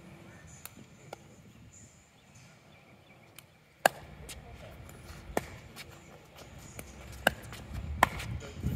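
Pickleball paddles striking the ball in a doubles rally: a sharp pop from the serve about four seconds in, the loudest, then further pops about a second or two apart as the ball is returned.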